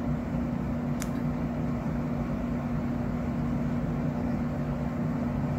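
Steady low machine hum with background noise, and one faint click about a second in.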